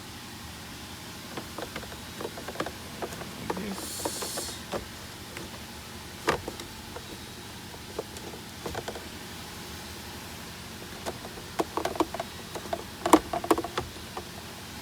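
Scattered clicks and knocks of a Honda Pilot's cabin air filter and its housing being handled, with a short rustle about four seconds in and a close run of sharper clicks near the end.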